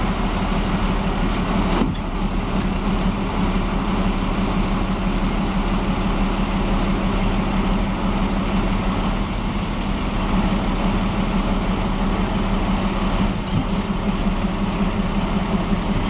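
Heavy diesel engine of a truck or earthmoving machine running steadily at a low, even speed.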